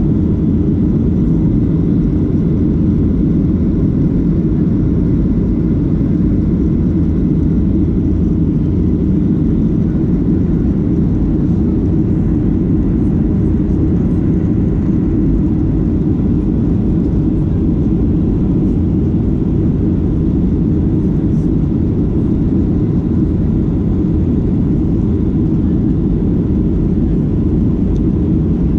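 Jet airliner during take-off: a steady, loud low rumble of engines and rushing air that holds even throughout.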